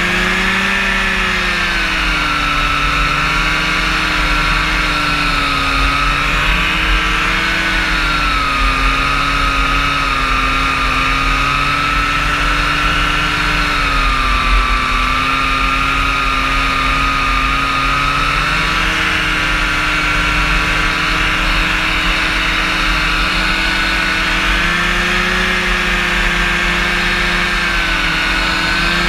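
Rotax engine and propeller of a powered parachute running in flight, the engine note slowly rising and falling in pitch; it dips a couple of seconds in and climbs again near the end.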